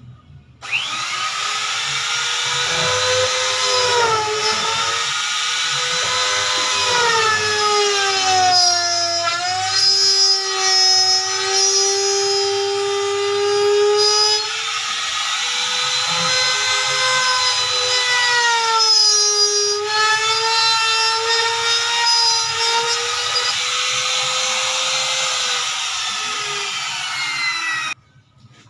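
Electric trim router starts up about a second in and runs at high speed with a steady whine, which sags in pitch several times as the bit cuts into the wooden door edge to rout a recess for a lock. It shuts off near the end.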